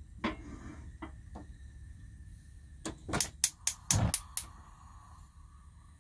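Gas cooktop's spark igniter clicking as the burners are lit: a few separate clicks at the start, then a quick run of about seven clicks from about three to four and a half seconds in, over a low steady rumble.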